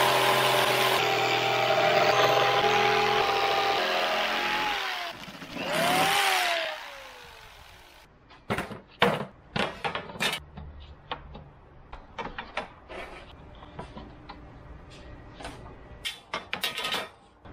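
Corded electric jigsaw cutting plywood: the motor whines steadily for about five seconds, then winds down, with a short second burst a second later that also winds down. After that come scattered light knocks and clatters as the plywood panel and metal frame strips are handled on a plastic workbench.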